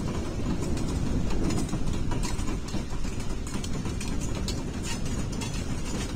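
A train of Union Pacific diesel locomotives passing at close range, with a steady low engine rumble and wheels clicking and clattering over the rails.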